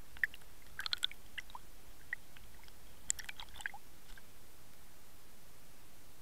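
Steady hiss from a Water Wolf underwater camera's microphone sealed in its housing underwater, broken by two short clusters of sharp clicks and ticks, one about a second in and another around three seconds in.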